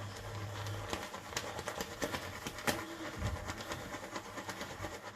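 Shaving brush being swirled through shaving-soap lather in a silicone lathering bowl with agitator nubs: a wet, crackling squish with many small clicks as the lather is worked up. A low hum runs under the first second.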